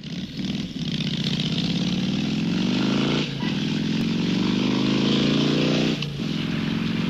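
Motorcycle engine accelerating hard, its pitch climbing, with a sudden drop in revs about three seconds in and again about six seconds in as it shifts up through the gears.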